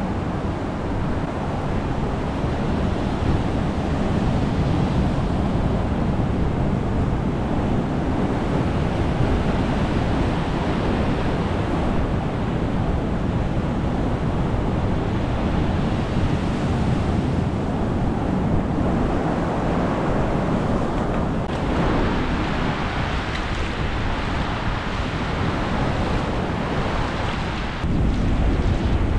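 Sea waves surging against a rocky shore and washing in and out of a hole in the rock ledge, a continuous rushing with wind buffeting the microphone. The low rumble steps up about a second before the end.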